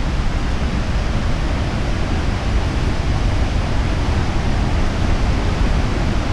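Steady, unbroken roar of a large waterfall, heaviest in the low end.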